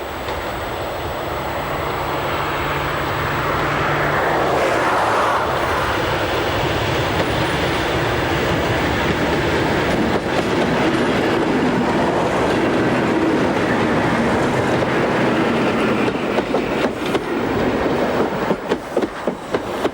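A train double-headed by two Class 37 diesel locomotives passing, growing louder over the first few seconds with a steady engine note. Near the end the coach wheels clack rhythmically over the rail joints.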